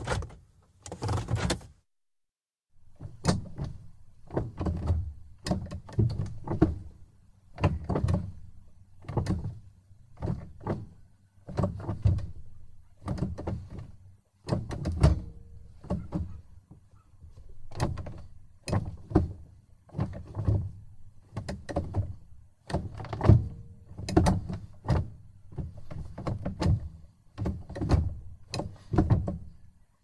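Automatic gear shifter of a 2002 Mercury Sable being moved between positions. It makes a run of short clunks and clicks, about one or two a second, with a brief pause near the start.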